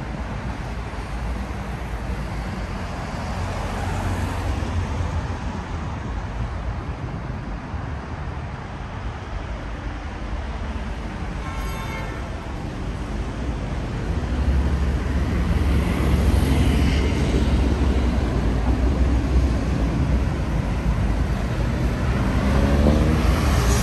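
City street traffic: motor vehicles running past in a steady rumble that grows heavier from about halfway through.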